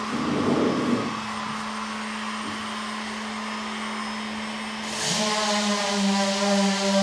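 Steady electrical hum, joined about five seconds in by a louder electric motor running with a whine and hiss.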